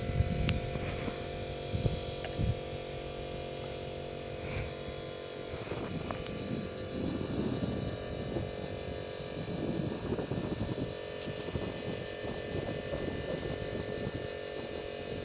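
A steady mechanical drone with several pitched tones, with a few sharp knocks in the first three seconds.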